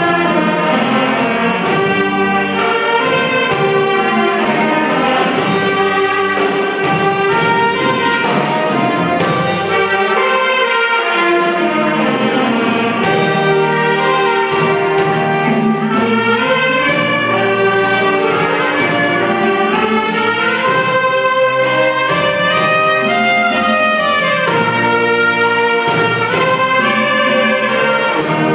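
Thai brass band (trae wong) playing live: saxophones and brass carry the melody, with sliding phrases, over a drum kit keeping a steady beat.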